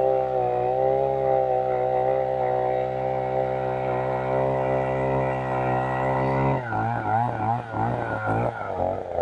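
Oshima 2P earth auger's 49.9 cc single-cylinder two-stroke engine running steadily under load as the auger bores into the soil. About six and a half seconds in, its note breaks up and the engine speed wavers rapidly up and down.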